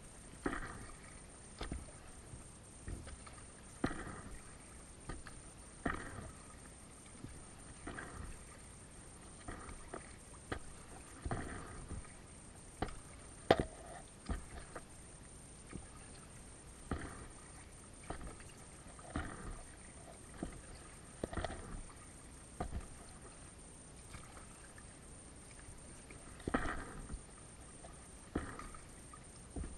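Kayak paddle strokes on calm water, a short splash and drip about every two seconds, with one sharper knock about halfway through.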